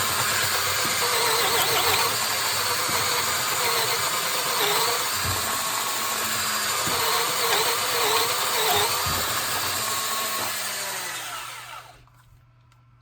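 DeWalt 18-volt cordless drill in low gear (speed range 1) boring a hole under load, its motor pitch sagging and recovering as it works. It holds on without stalling, which the owner finds better than in the higher range. The drill winds down and stops about 11 seconds in.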